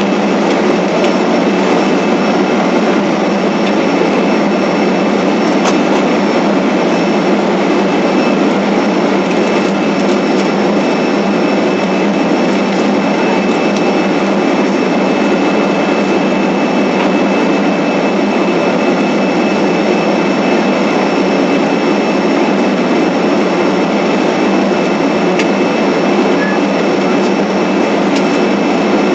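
Steady jet engine and air-system noise heard inside the cabin of a Boeing 767 on the ground before takeoff, an even rushing hum with a faint high whine that does not change.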